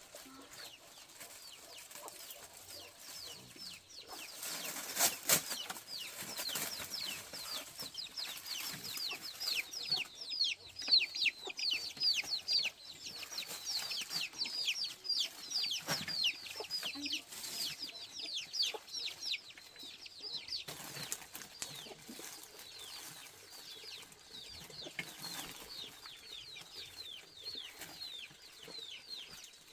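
Chickens peeping: a long run of short, high chirps, each falling in pitch, several a second, thickest in the middle. A couple of sharp knocks sound about five seconds in.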